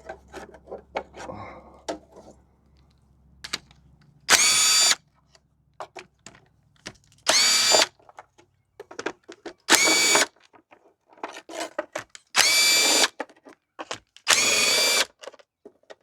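Impact wrench running in five short bursts a couple of seconds apart, each spinning up quickly, as it removes valve cover bolts from a 7.3 Powerstroke diesel. Light clinks of the socket and bolts come between the bursts.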